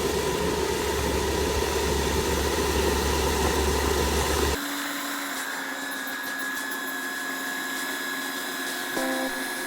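Kubota ER470 combine harvester's engine and threshing machinery running with a steady low rumble, which cuts off abruptly about halfway through, leaving a quieter hum with a steady high tone.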